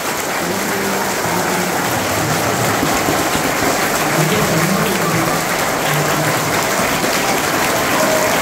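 A large crowd of schoolchildren clapping continuously and steadily, the 'clap many times' answer meaning they liked the class very much. A few voices call out faintly under the clapping.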